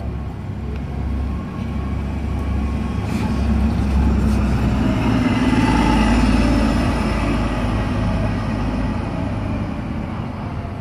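A 2009 Orion VII Next Generation hybrid-electric city bus driving past. Its drive noise builds to a peak as it passes close, about five to six seconds in, with a high whine over the rumble, then fades as it pulls away.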